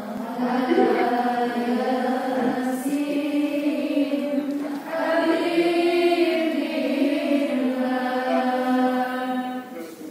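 Melodic chanted singing with long, wavering held notes, fading away at the very end.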